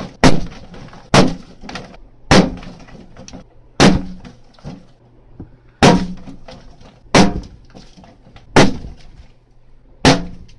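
Balloons popping one after another: eight sharp bangs about one to two seconds apart, each with a short ringing tail and a few fainter crackles.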